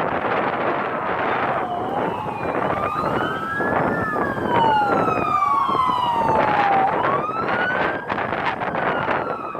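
Several emergency vehicle sirens wailing at once, each pitch sliding slowly up and down and overlapping the others, over a loud rushing background noise.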